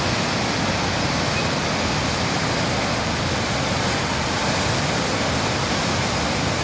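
Muddy river in flood, rushing and churning over a drop in one steady, unbroken rush of turbulent water. It is in spate and carrying sediment and bed material downstream.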